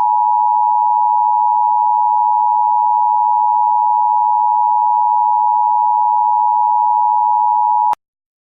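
Emergency Alert System attention signal: two steady tones sounding together, 853 and 960 Hz, loud and unwavering, cutting off sharply near the end.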